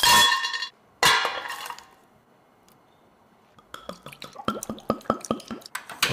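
Rock sugar and whole spices tipped from a bowl into an enameled cast-iron pot, landing in two short clattering rattles that ring briefly. From about three and a half seconds in, red wine glugs out of a bottle into the pot in quick, uneven gurgles.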